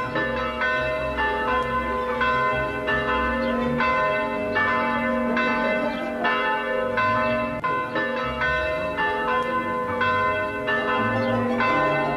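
Church bells ringing, several bells struck in turn about twice a second, each tone ringing on into the next.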